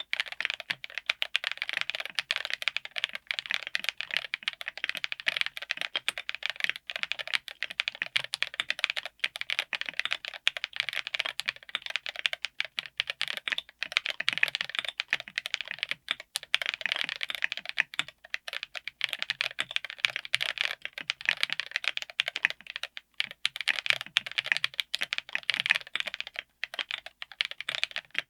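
Continuous fast typing on a mechanical keyboard fitted with Kailh Lunar linear switches, a dense run of keystroke clacks as the keys bottom out. The board is a DZ60 PCB in a Tofu60 aluminium case with an FR4 plate.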